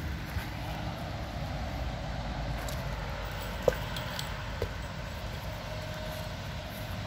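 Steady low outdoor rumble, broken a little past halfway by a sharp hollow thump and a smaller one about a second later: a dog bumping a hollow plastic ball with its nose and knocking it into the air.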